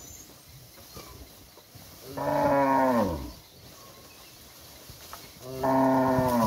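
Cattle mooing twice, each a long call of about a second that holds its pitch and then drops low at the end.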